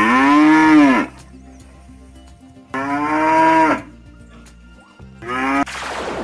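Cattle mooing three times, each moo rising then falling in pitch; the third is shorter and trails off into a breathy rasp.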